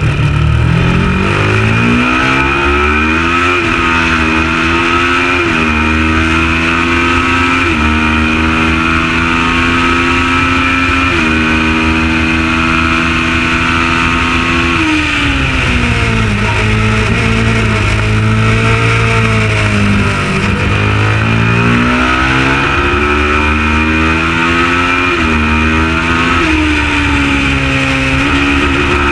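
Kawasaki ER650 parallel-twin race motorcycle engine at full throttle, rising in pitch and dropping back at each upshift every two to three seconds. About 15 seconds in it shuts off and falls in pitch as the bike slows, then climbs through the gears again from about 21 seconds, over a steady rush of noise.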